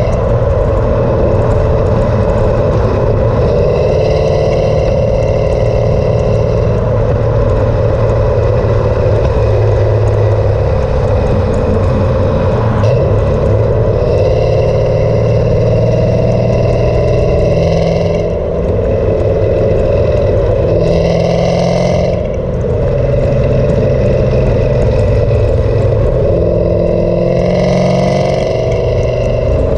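Cammed Camaro SS V8 through an MBRP exhaust, heard from outside at the rear of the car, pulling hard at highway speed. The engine note climbs in pitch over and over and briefly drops off twice in the second half, as at gear shifts, with wind rush underneath.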